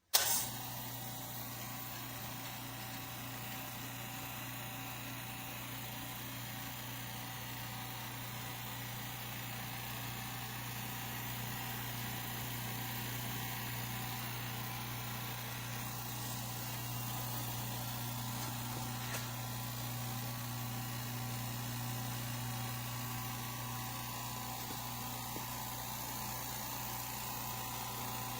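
California Air Tools ultra-quiet oil-free air compressor switching on with a sudden jump in level, then its motor and pump running steadily with a low hum and a few steady higher tones, slowly getting a little louder.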